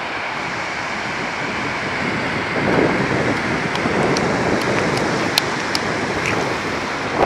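Steady rushing wash of sea surf breaking on a sandy beach.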